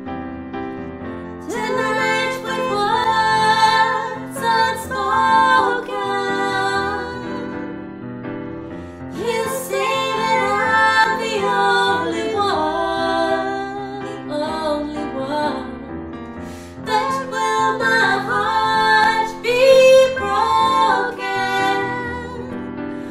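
Women singing a song in phrases with short breaths between them, accompanied by piano chords.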